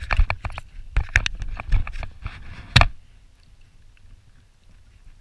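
A rapid, irregular clatter of knocks and bumps for about three seconds, then only a faint steady background hiss.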